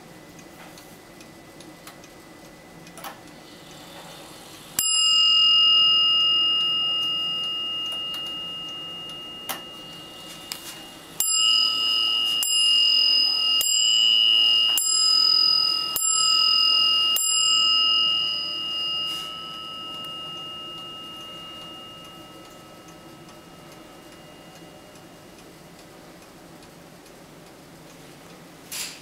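WUBA moon-phase wall clock striking its bell: one ringing stroke, then about six seconds later a run of six strokes about a second apart, each ringing on and fading out slowly. The clock's faint ticking runs underneath, with a sharp click near the end.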